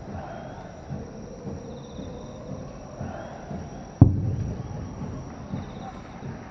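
A single aerial firework shell's boom heard from a distance, one sharp report about four seconds in that rolls away over a second or two. It arrives seconds after the burst is seen because of the distance.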